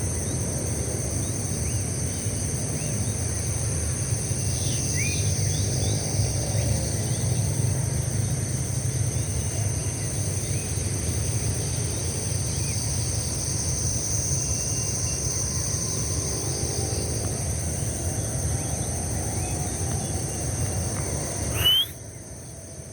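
Outdoor ambience: a steady high-pitched insect chorus over a low rumble, with a few short bird chirps. The sound cuts off abruptly near the end.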